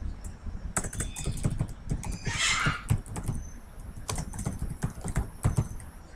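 Typing on a computer keyboard: an irregular run of key clicks as a word and a comma are entered. There is a short hiss about two and a half seconds in.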